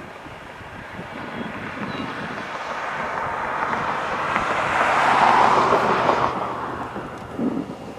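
A vehicle passing by: its noise swells to a peak about four to five seconds in, then fades away.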